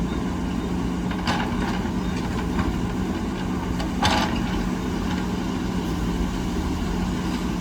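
Heavy diesel engine of earth-moving machinery running steadily, with a few light knocks and one louder, sharper clank about four seconds in.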